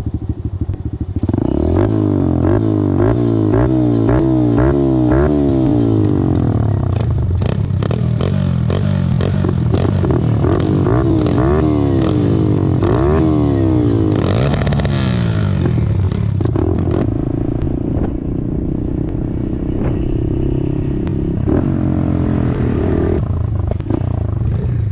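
Pit bike engines running and revving, the pitch climbing and dropping back again and again over the first half. After that they run at a steadier pitch.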